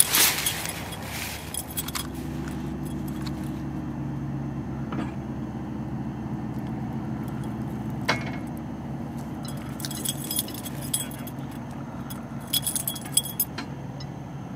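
A cat's collar tinkling in short jingling bursts as it walks: once at the start, then again after about ten seconds and just before the end. Under it runs a steady low hum.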